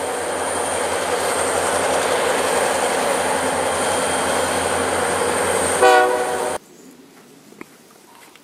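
Several diesel freight locomotives passing under load, a loud steady rumble of engines and rolling wheels. About six seconds in comes a short air-horn blast, then the sound drops abruptly to quiet with a few faint ticks.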